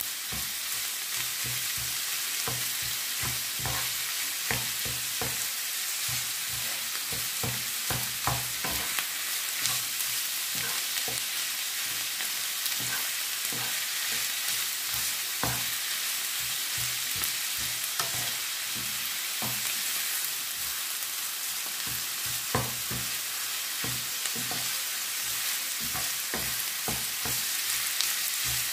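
Ground beef, diced onion and green chilli sizzling steadily in vegetable oil in a nonstick frying pan. A wooden spoon stirs the mixture, scraping and knocking against the pan many times.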